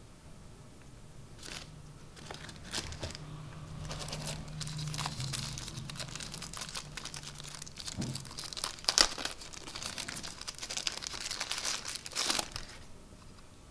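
Crinkly packaging being handled and unwrapped by hand: irregular rustling and crackling, with a sharp crackle about nine seconds in.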